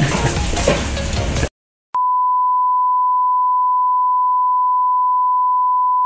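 A steady electronic beep tone at one unchanging pitch, starting abruptly and holding for about four seconds before cutting off sharply. Before it, voices and kitchen clatter stop suddenly about a second and a half in, followed by a brief silence.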